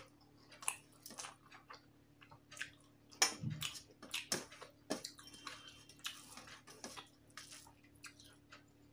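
Close-miked chewing of soft rice and soybean-potato curry, with irregular wet mouth clicks and smacks. Fingers squish and mix the rice on a steel plate.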